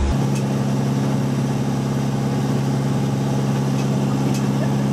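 Inboard diesel engine of a Catalina 36 sailboat running steadily under way, a constant low drone.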